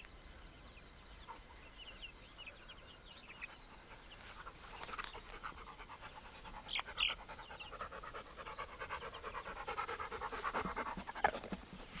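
A dog panting with quick, even breaths, growing louder in the second half as it comes close.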